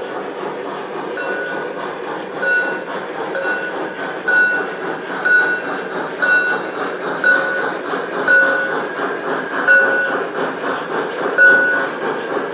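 Large-scale model Br 50 steam locomotive and hopper wagons running past on the track: a steady rumble of motor and wheels on the rails, with a short ringing tone repeating about once a second.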